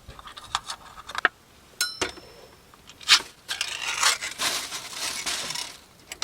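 Pot and kitchen utensils clinking and scraping as rice is readied for cooking: scattered knocks, one short ringing clink about two seconds in, and a longer rustling stretch from about three and a half seconds in that lasts about two seconds.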